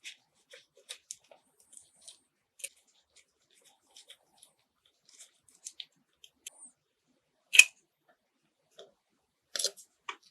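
Hands working on a 1:24 scale model car: scattered small clicks, taps and light scrapes of tools and small parts. One sharp click comes about two-thirds of the way through, and a quick cluster of clicks near the end.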